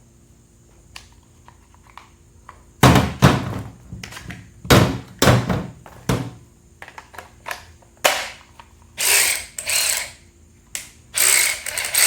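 Knocks and handling clatter as the tool is handled, then a DeWalt DCF513 cordless ratchet spun up free twice in short trigger pulls, a motor-driven whir with the ratchet mechanism chattering, about nine and eleven seconds in.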